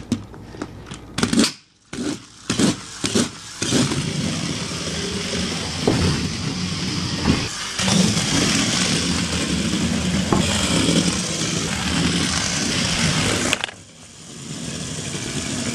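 Two VTech Switch & Go Dinos Turbo toy cars being pushed forward over and over on a tile floor to spin up their back wheels, a quick run of scraping strokes. Then they are let go and a steady engine-like race sound runs for about ten seconds as they speed off, dropping away suddenly near the end.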